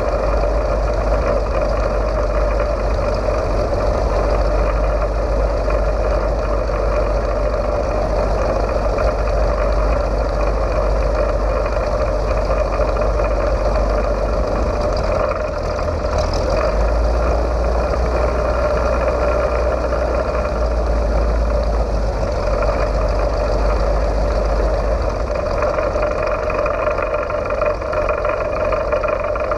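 The VL Viima II biplane's Siemens-Halske Sh 14A seven-cylinder radial engine running steadily at low power as the biplane taxis.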